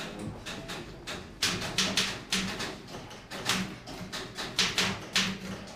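Electric typewriter being typed on: irregular runs of sharp key strikes, several a second, broken by short pauses.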